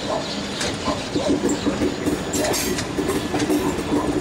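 Indian Railways passenger train rolling along a station platform, heard from one of its coaches: wheels clacking unevenly over the rails under a steady low hum and rumble.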